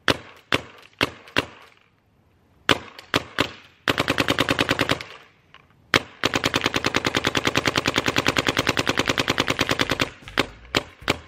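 DYE DM6 electronic paintball marker firing: a few single shots and short strings, then two rapid bursts at about ten shots a second, the second lasting about four seconds, with the marker ramping to NXL specs. A few single shots follow near the end.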